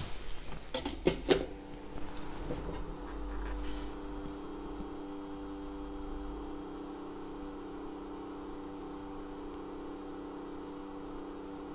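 A few sharp clicks about a second in, then a steady mechanical hum made of several fixed tones.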